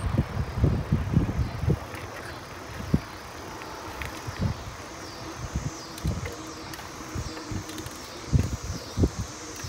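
Riding a bicycle on a paved path: a steady rolling rush with irregular low wind gusts on the microphone, heaviest in the first two seconds and again near the end.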